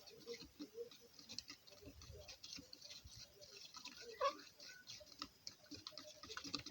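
A fork stirring a runny milk-and-cream mixture in a small container: a quick, faint, irregular run of little taps and scrapes.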